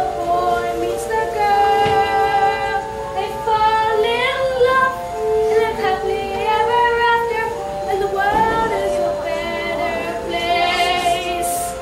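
A boy singing a solo song in an unbroken voice over musical accompaniment, holding long notes, with vibrato on a held note near the end.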